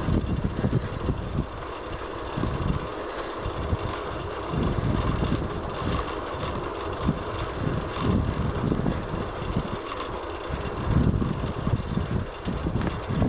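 Wind buffeting a compact camera's built-in microphone on a moving bicycle: uneven low rumbling gusts that come and go every second or so, over a steady rushing hiss.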